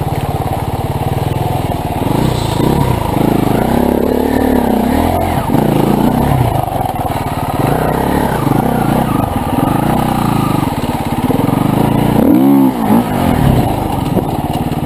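Motorcycle engine revving, its pitch rising and falling again and again, with a quick sharp rev up and back down about twelve seconds in.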